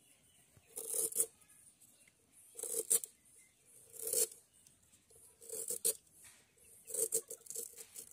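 A knife cutting through a white radish held in the hand, five separate slicing strokes about every one and a half seconds.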